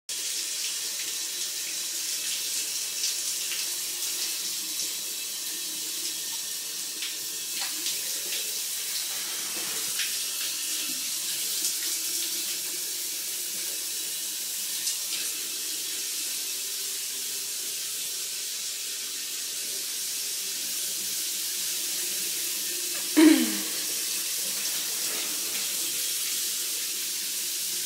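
Shower spraying steadily from the shower head, with a loud, brief sound that slides down in pitch about 23 seconds in.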